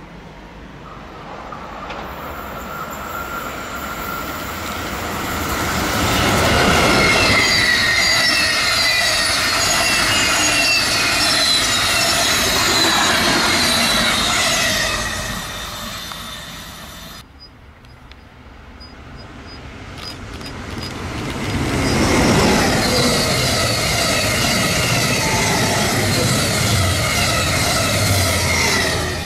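A train passing close by on the rails: the rush of wheels on track grows loud, holds for several seconds and fades away. After a cut, a second train draws near and runs past loudly.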